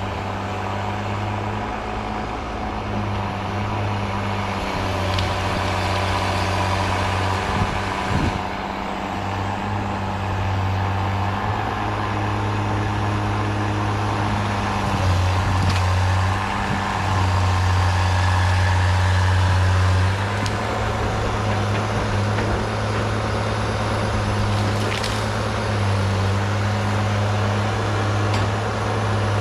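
Diesel engine of a Cat 318B excavator running steadily, its drone strengthening and easing a little as the load changes. A few sharp knocks come through it.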